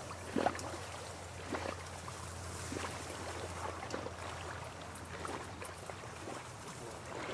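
Faint sloshing and splashing of pond water as a hunter wades through shallow water, with scattered small clicks over a low steady hum.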